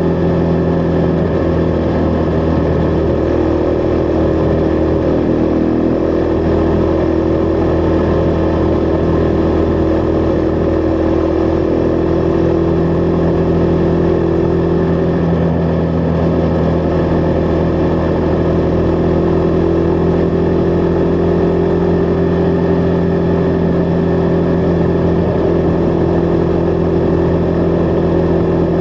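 Husqvarna Vitpilen 401's single-cylinder engine running at a steady speed while riding, its pitch dipping slightly a few seconds in and shifting again around the middle.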